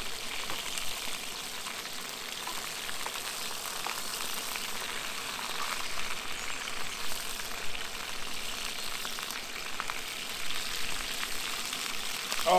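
Sausages frying in a pan: a steady sizzle with small crackles now and then.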